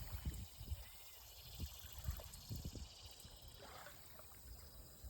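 Small waves lapping faintly at a river beach, with irregular low thuds.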